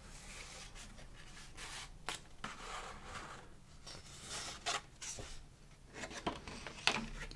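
Paper and card rustling and rubbing as hands handle the contents of a box close to the microphone, with a few sharper crinkles or taps at about two, nearly five and seven seconds in.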